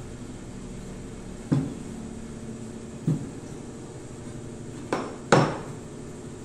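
A small glass bottle, used as a rolling pin on dough, knocking against the table four times; the last two come close together near the end, and the final knock is the loudest.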